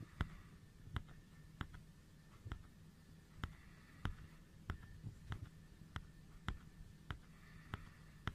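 A regular series of sharp clicks, roughly three every two seconds, over a faint low hum.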